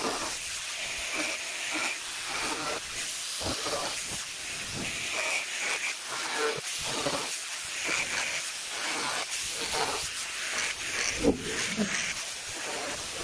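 A steady high hiss, with scattered light knocks and one sharper knock about eleven seconds in.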